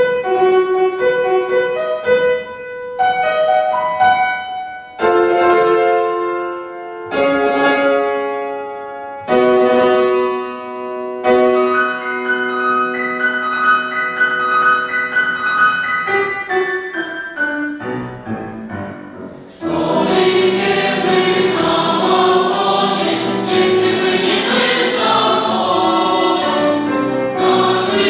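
Piano introduction of separate chords and melody notes that ring and die away, then about twenty seconds in a boys' and youths' choir enters, singing in parts with the piano.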